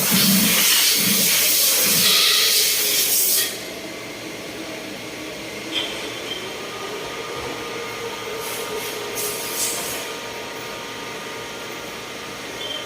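CNC machining shop for motorcycle shock absorbers: a loud hiss for about the first three and a half seconds, then a steady machine hum. A few ringing metal clinks and short hisses sound over the hum.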